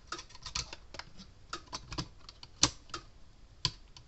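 Irregular small clicks and taps of pliers and a wire connector against the plastic case of an electric fence charger as a wire is refitted onto its terminal. Two sharper clicks about a second apart in the second half stand out.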